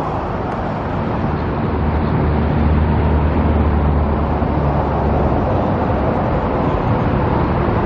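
Road traffic passing steadily, with a heavier vehicle's low engine drone swelling from about two seconds in and fading away near six seconds.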